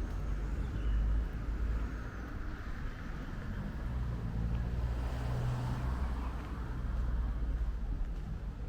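A motor vehicle's engine running: a steady low rumble, with a hum that swells for a couple of seconds in the middle.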